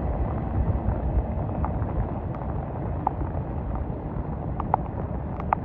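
Low, muffled rumble of a passing Norfolk Southern freight train, dulled by rain water in the phone's microphone, with a few short sharp clicks in the second half.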